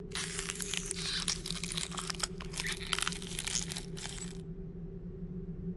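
Dense crackling, crunching sound effect made of many rapid little clicks and crackles, which stops abruptly about four and a half seconds in. A steady low hum runs underneath.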